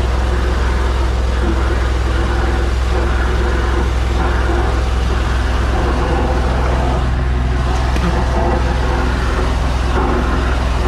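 High-pressure drain jetting machine running steadily: a constant low engine-and-pump hum under a broad rushing noise, as it drives the jet to clear a blocked drain.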